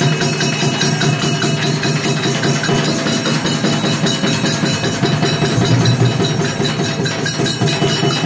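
Music with a fast, steady percussion beat.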